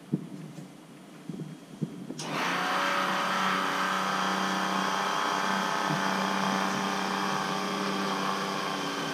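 A small electric oil-extraction pump, powered off the boat's battery, switches on suddenly about two seconds in and runs steadily with a motor hum, pumping out a blocked marine toilet. A few light knocks come before it starts.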